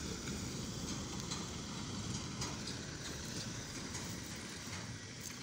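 Tipper truck's diesel engine running steadily as the truck drives off and turns across gravel, its rumble slowly fading with distance.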